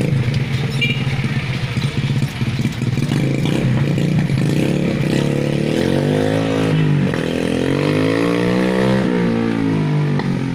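A 110cc mini trail bike's small engine runs at a steady note, then from about halfway through its revs rise and fall twice as it is ridden off.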